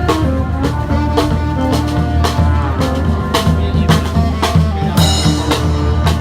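Street brass band playing live: horns over a steady drum beat with a strong low bass line.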